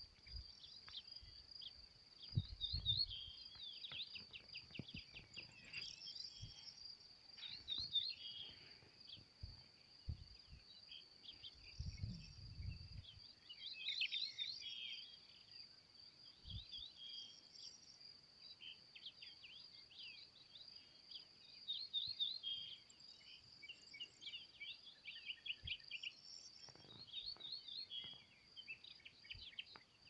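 Meadow insects trill steadily and high-pitched, while small birds sing repeated phrases of quick falling notes over them. A couple of brief deep rumbles of wind hit the microphone, about two and twelve seconds in.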